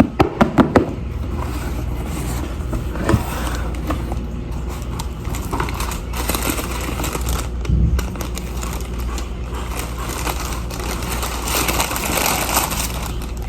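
Packaging being handled during an unboxing: rustling and scraping, with a few sharp clicks and knocks in the first second and one more about three seconds in, over a steady low hum.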